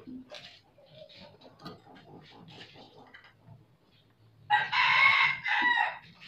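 A rooster crows once, loud, starting about four and a half seconds in and lasting about a second and a half. Before it there are only faint small clicks and taps.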